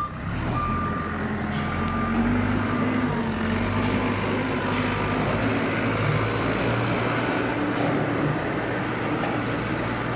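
Diesel engine of a Case 432E backhoe loader running steadily under load as its front bucket pushes and spreads corn-stalk bedding. A few short high beeps, from a reversing alarm, sound in the first second or so.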